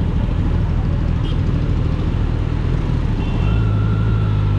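Kawasaki Z900's stock inline-four engine running on the move in traffic, a steady low drone; about three seconds in a stronger low note and a faint steady higher tone join it.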